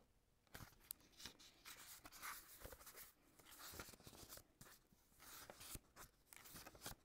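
Pages of a small paperback book being leafed through: faint, irregular paper rustling with soft flicks of turning pages.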